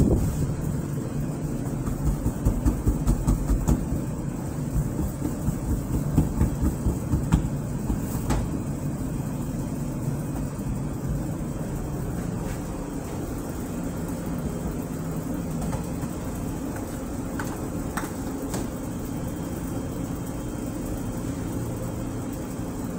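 Steady low hum of pizza-shop kitchen equipment, with a quick run of soft thumps early on and again a few seconds later as hands press and slap pizza dough on a floured counter, and a few light clicks.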